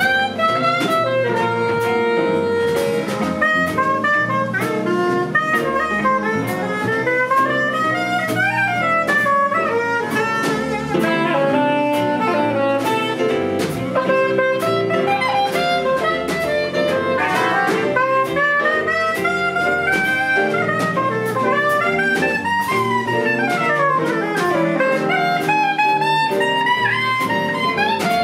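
Big band jazz played live: soprano saxophone melodic runs over the band's brass and saxophones, with piano, guitar, double bass and a drum kit keeping time on the cymbals.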